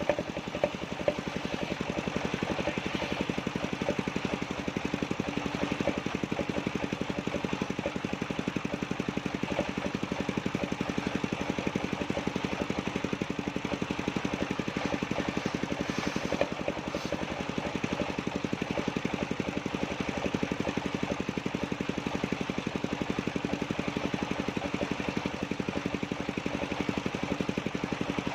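The engine of a sawmill circular-saw machine running steadily with an even, rapid firing pulse.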